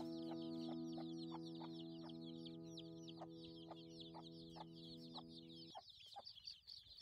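A crowd of young chicks peeping, with many short high chirps overlapping without a break. Faint background music with steady held tones and a light regular beat fades under them and stops about three-quarters of the way through.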